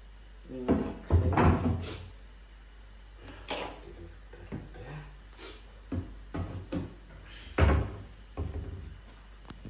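Kitchen cupboard doors being opened and shut, with a string of knocks and thuds of things handled and put away; the loudest come about a second in and just before eight seconds in.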